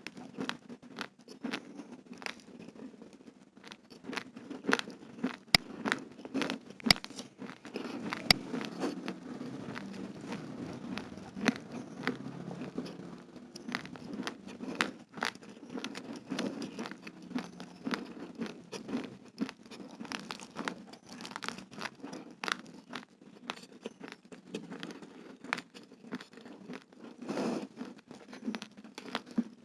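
Close-miked chewing of raw, uncooked rice grains: dense, irregular sharp cracks, several a second, as the hard grains break between the teeth, over a steady lower mouth-chewing sound.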